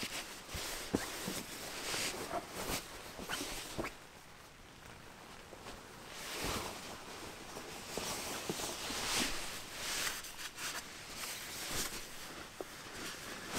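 Nylon shell of a lightweight down puffer jacket rustling and swishing in short bursts as it is pulled on over a fleece and settled on the shoulders, going quieter for a couple of seconds midway; a zip is done up near the end.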